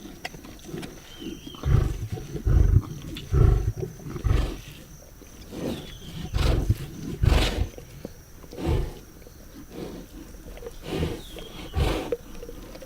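Lions feeding on a zebra carcass, with repeated short, low growls coming irregularly, loudest and most frequent in the first half.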